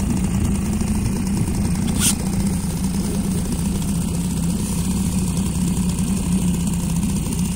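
Small Sea-Pro outboard motor on a sailing yacht's stern, running steadily to push the boat after the wind has died. A single sharp click comes about two seconds in.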